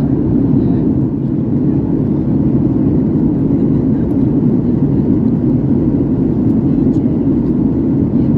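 Steady cabin noise of a Boeing 737-8200 (737 MAX 8) in cruise: an even, low drone of airflow and its CFM LEAP-1B engines.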